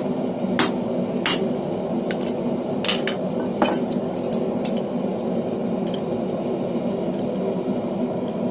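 Light, irregular hammer blows ringing on hot steel at the anvil, about ten of them, most in the first half and one more about six seconds in: chamfering the square edges of a small bar. A steady low hum runs underneath.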